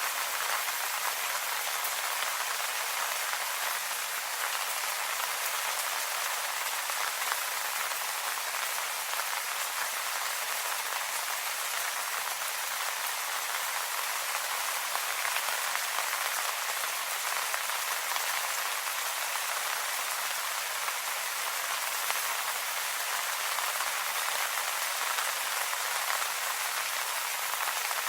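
Steady rain pattering on leaves, an even hiss dense with fine drop hits.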